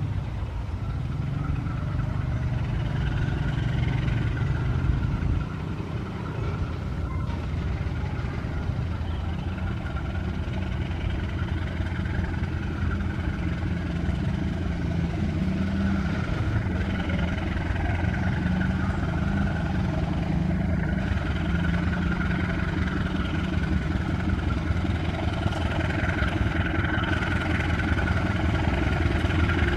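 GE CC 206 diesel-electric locomotive running as it hauls a passenger train toward the listener, a steady low engine drone that grows gradually louder toward the end.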